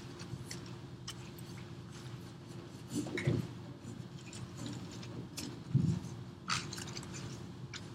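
Sneakers sliding and scuffing on a hardwood gym floor during gliding dance footwork, with scattered small squeaks and clicks and two heavier footfalls, about three seconds in and near six seconds. A steady low room hum runs underneath.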